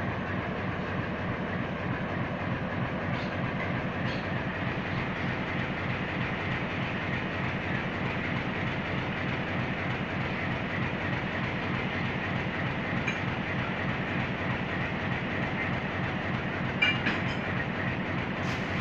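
ALCo DL535 diesel-electric locomotive's engine idling steadily while it stands at a coach, with a couple of short sharp metallic clanks near the end.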